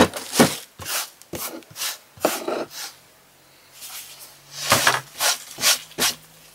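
Handling noise on a tabletop: a run of short scrapes and knocks, as of the wooden board and craft pieces being moved and set down, in two clusters with a pause between.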